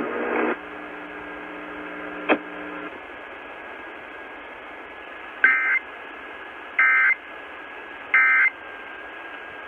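Emergency Alert System end-of-message data bursts: three short, identical digital squawks about a third of a second each, roughly 1.4 seconds apart, over steady broadcast hiss. They mark the close of the alert, here a required monthly test.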